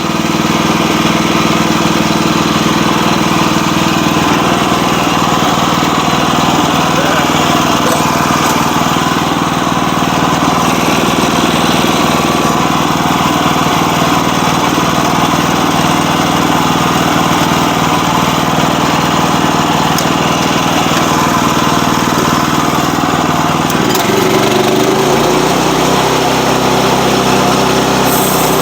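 A sawmill's small petrol engine running steadily; about 24 seconds in its note changes.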